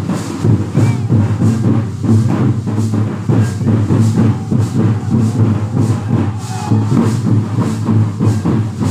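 Folk dance music driven by a steady hand-drum beat, about two strokes a second, that sets the pace for a Santali line dance.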